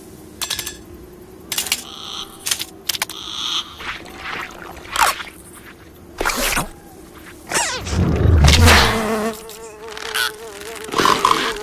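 Cartoon sound effects: a housefly buzzing, with a string of short, sharp comic effects. About eight seconds in comes a heavy, low thud, the loudest sound here.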